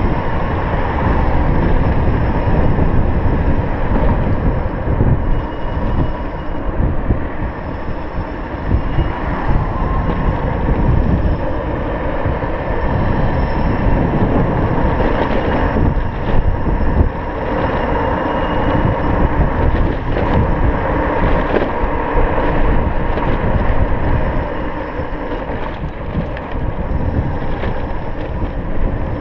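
Wind buffeting the microphone and tyre rumble from an electric scooter riding along a street, with no engine sound, only faint thin steady tones over the noise and a few short knocks in the middle.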